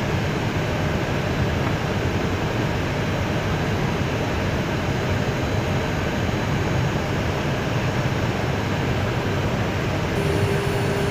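Steady rushing cockpit noise of an Airbus A320 taxiing in on the apron. A faint steady tone comes in near the end.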